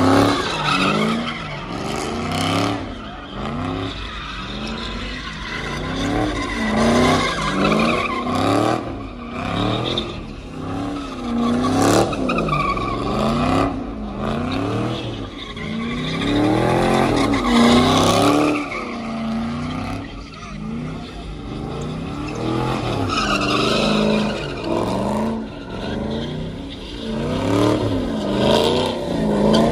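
A muscle car doing donuts, its engine revving up and falling back over and over while the spinning rear tyres skid and squeal on the asphalt.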